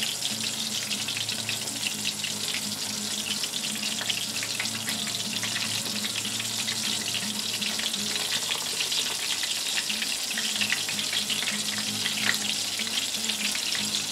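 Flour-coated chicken deep-frying in hot oil in a pot: a steady, dense crackling sizzle of small popping bubbles.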